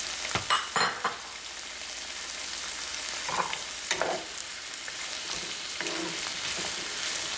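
Sliced red onion and carrot sticks sizzling in oil in a frying pan, with knocks and scrapes of a wooden spoon stirring them. The knocks cluster in the first second, with a few more about halfway through.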